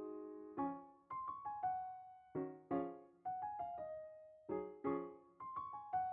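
Background piano music: a gentle melody of struck notes and chords, each note fading before the next.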